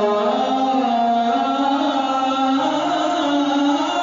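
A man singing an Arabic madih, a devotional praise song for the Prophet, in a chanting style. He holds long, ornamented notes that slide up and down in pitch without a break.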